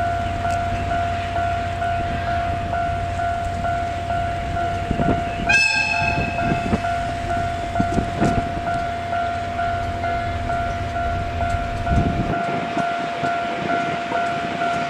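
Level-crossing warning alarm ringing with a steady, evenly pulsing tone, over the low rumble of a DE10 diesel-hydraulic locomotive engine during shunting. The locomotive sounds one short horn blast about five and a half seconds in. The engine rumble drops away about twelve seconds in.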